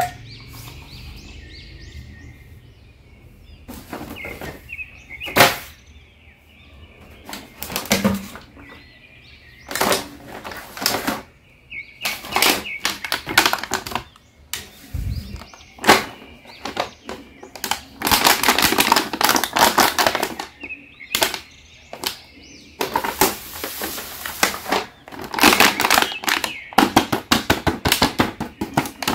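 Clear plastic blister packaging of a carded toy crinkling and rustling as it is handled, with scattered taps and clicks. The crinkling is densest in the second half.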